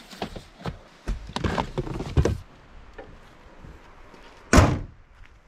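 Clicks and knocks from handling at a 2008 Volvo XC90 after a brake-fluid top-up, then one loud slam as the car is shut, about four and a half seconds in.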